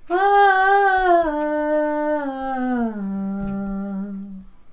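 A single unaccompanied voice singing one long held 'oh' that steps down in pitch several times over about four seconds, settling on a low note before fading, at the end of a line of a Nepali song.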